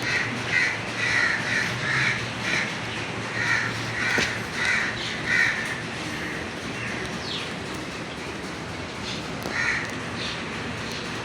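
Crows cawing: a quick run of about a dozen caws over the first five seconds, then a single caw near the end.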